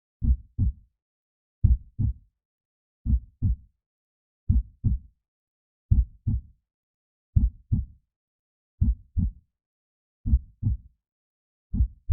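A slow, steady heartbeat: low lub-dub double beats about every second and a half, with silence between them.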